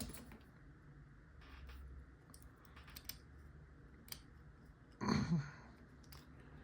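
Faint, scattered clicks of a lock pick working the pins inside a lock's keyway. About five seconds in there is a brief, louder low vocal sound.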